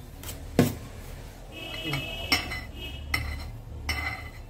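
Metal cake-decorating tools clinking and tapping against metal, about five sharp knocks with the loudest about half a second in, and a brief metallic ringing near the middle.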